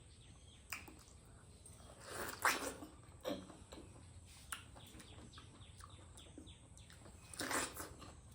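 Close-up eating sounds of kihom fruit being bitten and chewed: small crisp clicks throughout, with louder bursts a little after two seconds in, at about three seconds, and near the end.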